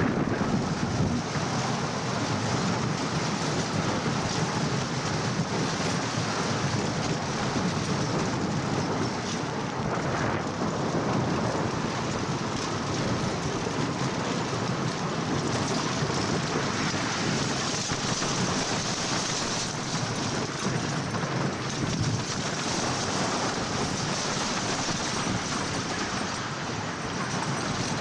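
Wooden side-friction roller coaster train rumbling steadily along its wooden track, heard on board, with wind buffeting the microphone.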